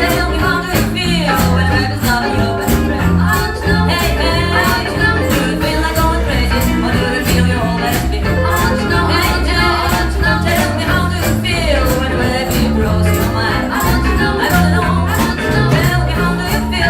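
A band playing a song with a steady drum beat, bass and a voice singing.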